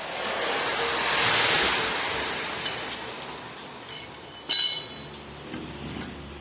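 A broad rushing noise swells and fades over a few seconds. Then a metal object clanks once, sharply, with a brief high ringing.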